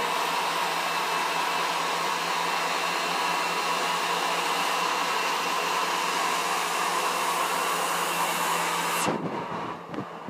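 An electric machine running with a steady whirring hiss and a low hum, switched off about nine seconds in.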